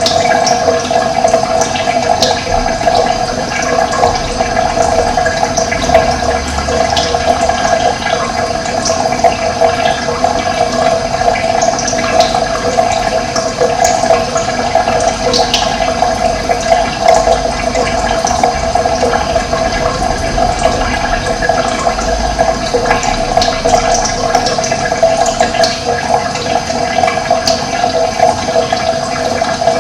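Running water, a steady continuous rushing and splashing of flowing water.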